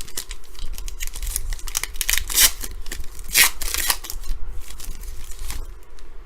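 Crinkling, tearing and rustling of a foil trading-card pack being opened and its cards handled: a run of sharp crackles, loudest about two and a half and three and a half seconds in.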